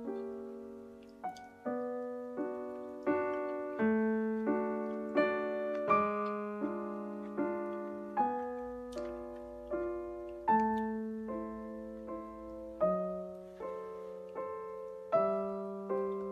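Background piano music: a slow melody of struck notes and chords, about one or two a second, each left to fade.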